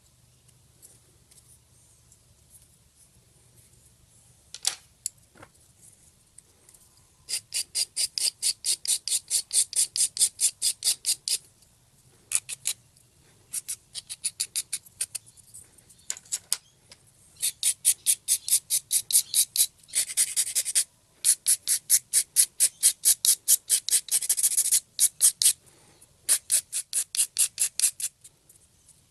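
Hand file rasping back and forth over hardened excess epoxy on a plastic cup-holder part, in quick strokes about five a second. The strokes come in runs of a few seconds with short pauses, after a few faint scrapes at the start.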